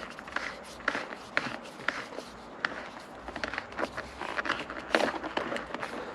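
Hand-handling noise as a new shift knob and shift boot are worked onto a car's shift lever: irregular light clicks, taps and rustling.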